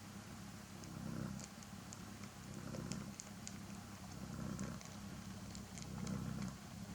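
Cat purring during nursing, the low purr swelling and easing about every second and a half as it breathes, with faint small clicks from the kittens suckling.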